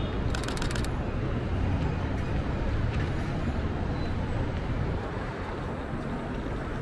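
City street traffic, a steady low rumble of passing vehicles. About half a second in there is a quick burst of about five sharp clicks from a Canon M50 mirrorless camera's shutter firing in rapid succession.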